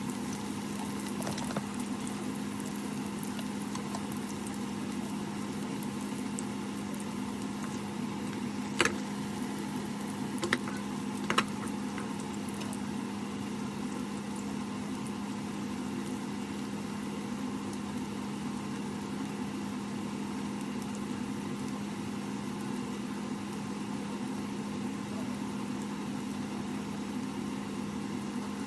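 Buchimgae frying in a pan: a faint, even sizzle over a constant low hum, with a few light clicks about nine to twelve seconds in.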